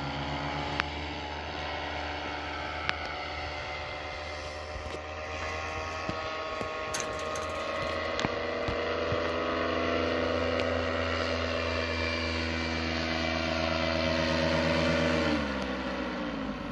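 Paramotor engine and propeller running hard through the take-off run and climb-out, a steady pitched drone. Its pitch drops sharply about a second before the end, as the paramotor comes back low toward the listener.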